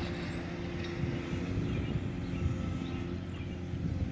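Diesel engine of a large Volvo excavator running steadily, a low, even hum.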